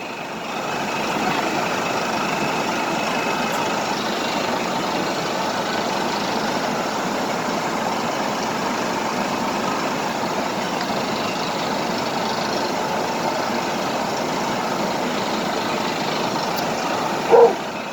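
Steady rushing of water pouring over a small river waterfall, an even hiss and roar with no rhythm or pitch.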